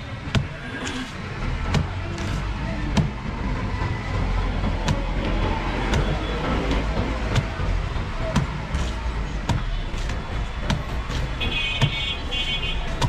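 A big knife chopping into palmyra (toddy) palm fruits on a wooden log block, making irregular sharp knocks about one or two a second, over the low rumble of street traffic. A vehicle horn sounds briefly near the end.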